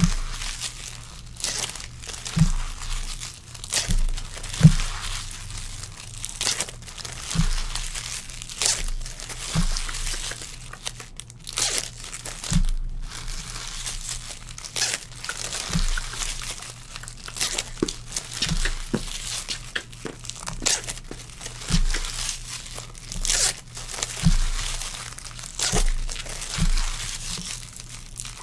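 Foil trading-card packs being torn open and their wrappers crinkling as the cards are pulled out and handled, in short rustling bursts every second or so. A faint low hum runs underneath.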